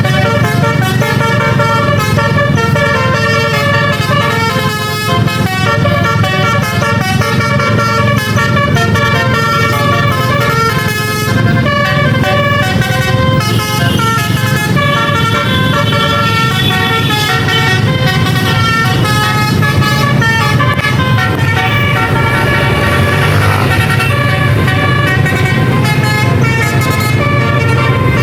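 Basuri telolet musical air horns playing a tune of stepped notes on several trumpets at once, over the low running of the vehicle's engine.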